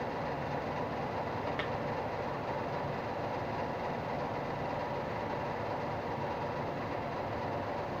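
Steady mechanical hum and rumble in the background, with a faint click about one and a half seconds in.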